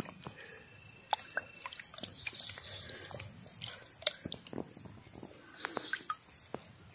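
Small splashes, sloshes and drips of shallow stream water as a hand moves a large fish about at the surface, with scattered light clicks. A steady high insect drone carries on behind.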